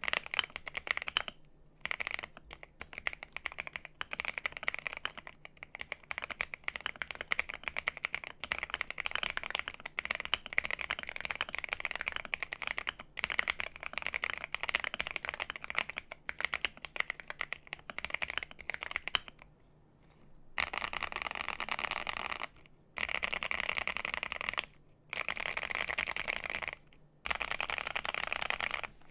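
Typing on an Akko MOD005 mechanical keyboard with its aluminum plate: a dense, irregular run of key clacks. About two-thirds of the way through there is a short pause, then several bursts of rapid clatter, each about two seconds long, with short breaks between them.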